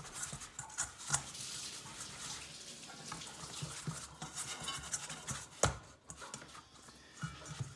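Hand mixing and squishing a small lump of sticky dough around a stainless steel bowl, with soft wet scraping and light clicks. One sharp knock about five and a half seconds in.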